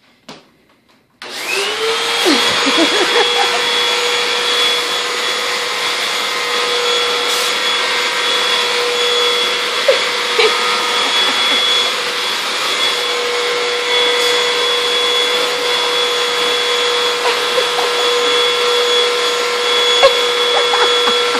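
Vacuum cleaner switched on about a second in, its motor spinning up with a brief rising whine and then running steadily. A few faint knocks are heard over it.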